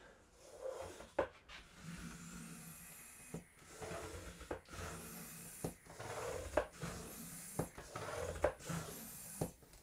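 An air pump worked in a steady rhythm, about one stroke a second: each stroke a rush of air ending in a click. It is pressurising a plastic-bottle air reservoir that feeds a 3D-printed compressed-air engine.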